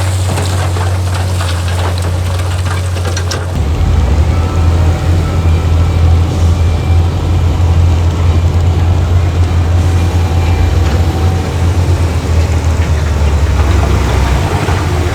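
Heavy diesel engine of earthmoving machinery running steadily, getting louder about three and a half seconds in. A patter of small clicks and rattles sounds over the first few seconds.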